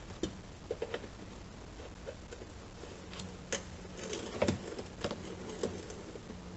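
Scattered light clicks, taps and scrapes of hands and tools working loose a car's hatch latch receiver unit, with a cluster of sharper knocks about four to five seconds in.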